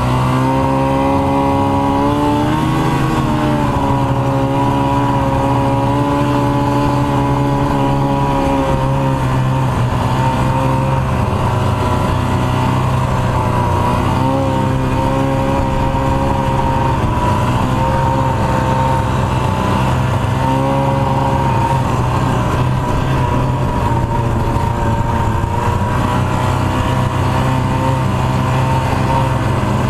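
1989 Ski-Doo Formula Plus snowmobile's two-stroke engine running at a steady trail speed, its pitch dipping briefly a few times as the throttle eases and picks back up.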